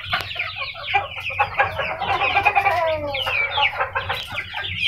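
A flock of chickens clucking and chirping all at once, a dense, unbroken chatter of many short calls.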